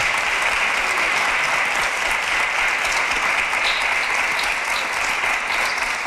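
Studio audience applauding, a steady dense clapping that holds at an even level throughout.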